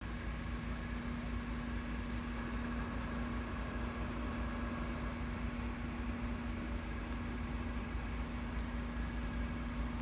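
Audi A6 Avant police car idling: a steady low rumble with a constant hum that does not change.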